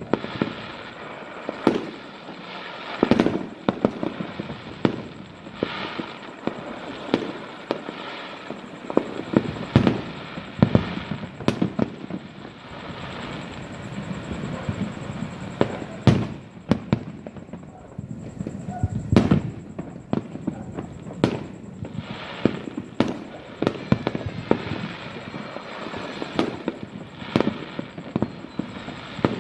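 Fireworks display: many sharp bangs at irregular intervals, with continuous crackling in between.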